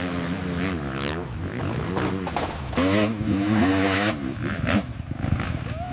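Dirt bike engine revving hard and unevenly, its pitch swinging up and down repeatedly, and louder for about a second near the middle.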